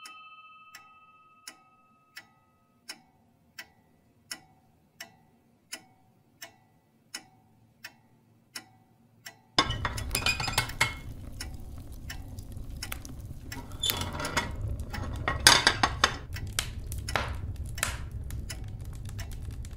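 A clock ticking slowly, about one and a half ticks a second. About halfway through it gives way abruptly to wood burning in a wood-fired kitchen oven: a steady low rush of fire with many crackles and pops.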